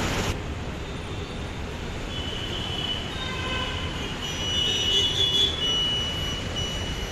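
Bus stand traffic noise: a steady rumble with several high-pitched squeals from about two seconds in, loudest around five seconds in.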